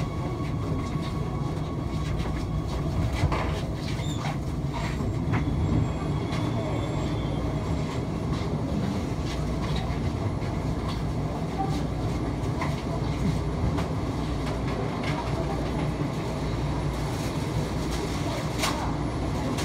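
Ui LRT UL000-series light rail train heard from inside the front of the car in a tunnel: a steady low rumble with scattered clicks, the train creeping slowly and then standing.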